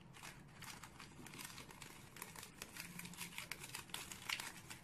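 A foil sachet of Magic Sarap seasoning crinkling as it is handled, with many small irregular crackles.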